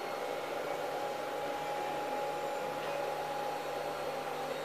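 Steady mechanical hum and whirring noise of a running machine or fan, with a faint constant whine, unchanging throughout.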